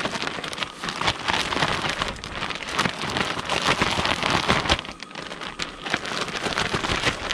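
Zip-top plastic bag of fish fillets and seasoned flour being shaken to coat them: dense crinkling and rustling of the plastic, easing briefly about five seconds in.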